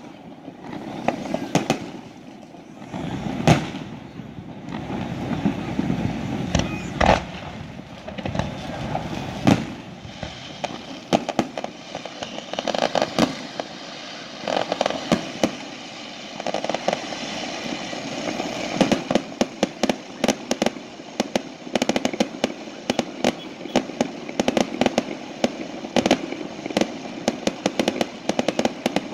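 Fireworks exploding: irregular bangs and booms over a rumbling wash through the first half, then a fast, dense string of sharp cracks from about two-thirds of the way through.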